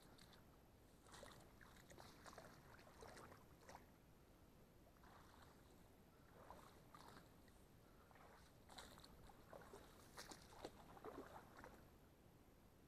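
Faint footsteps swishing through wet marsh grass and soggy ground, in three spells of walking with short pauses between.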